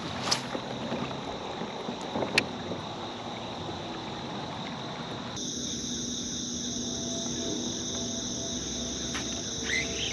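A steady high-pitched chorus of night insects, which shifts to a stronger, higher tone about five seconds in. Two sharp knocks come in the first few seconds, and a bird starts chirping right at the end.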